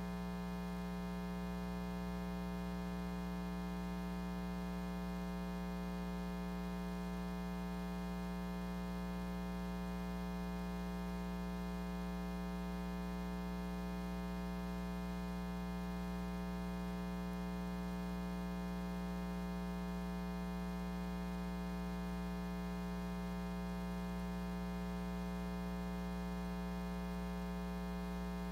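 Steady electrical mains hum, a constant buzz with many evenly spaced overtones and no change in pitch or level.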